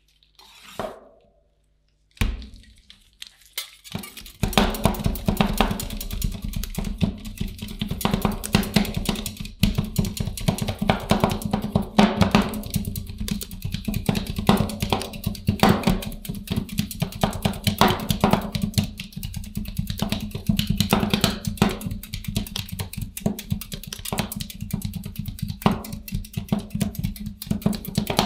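Metal spatulas rapidly chopping and tapping on a cold steel ice cream pan, breaking cookies into the cream base to make rolled ice cream. A few scattered taps come first, then dense, fast chopping starts about four seconds in, over a steady low hum.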